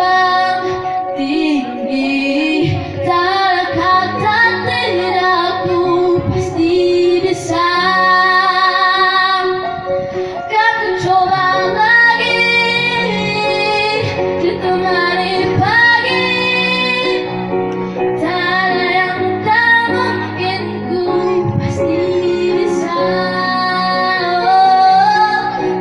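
A young girl singing a melody into a microphone, amplified through a loudspeaker, with electronic keyboard accompaniment; she holds several long, steady notes.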